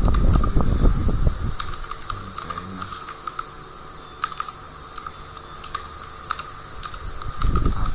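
Computer keyboard being typed on: irregular keystroke clicks, busier and louder in the first second or so and again near the end.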